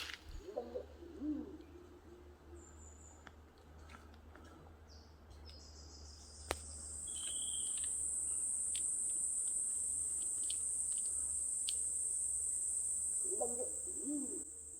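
A low, wavering call from high in the trees, heard twice, once about a second in and again near the end; the listener takes it for an unfamiliar bird. From about six seconds in, a steady high-pitched insect drone sets in and becomes the loudest sound.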